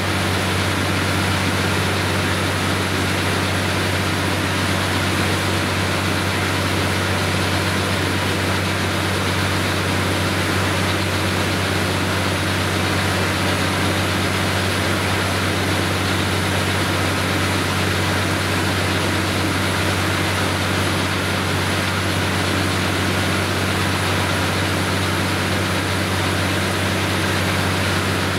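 Truck-mounted borewell drilling rig running while drilling, its diesel engine and ELGi air compressor giving a loud, steady low drone with an even rushing noise over it.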